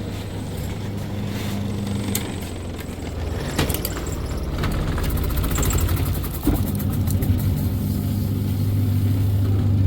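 Godrej semi-automatic washing machine's electric motor running with a steady hum while the drum turns, with a few sharp knocks along the way. The drum has bent out of round with age, which makes it shake as it turns.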